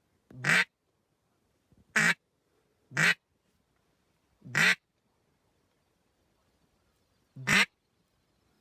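Five loud, short, harsh quacks, spaced unevenly one to three seconds apart.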